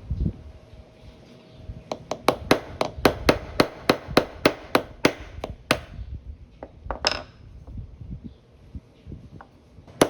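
Small hammer tapping a pin punch to drive a pin out of a Swiss Army knife: a run of sharp taps, about three a second, for several seconds, then a few lone taps after a pause.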